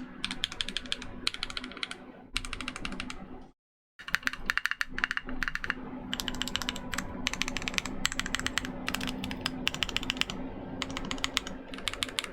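Keychron Q2 gasket-mount mechanical keyboard with lubed tactile "Patina" switches (Kailh speed copper stems, Jwick nylon housings) on a stainless steel plate, typed on fast in bursts of rapid keystrokes. The sound cuts out completely for a moment about three and a half seconds in.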